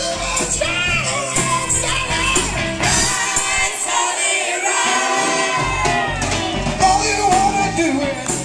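Live rock band playing loudly, with male and female voices singing into microphones. The deep bass drops away for about two seconds midway, then comes back.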